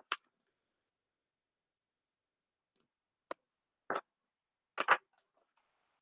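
A few short taps and rustles from a hardcover picture book being held up and handled, spaced out over a few seconds between stretches of dead silence.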